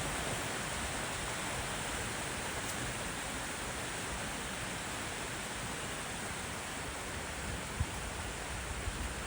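Rushing water of a mountain stream: a steady, even hiss with no change, with one soft low bump near the end.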